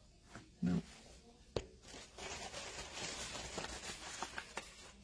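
Starched cotton fabric being ripped by hand into a strip: a long, ragged tearing noise full of small crackles, from about two seconds in to near the end. A brief voice sound comes just before it, about a second in.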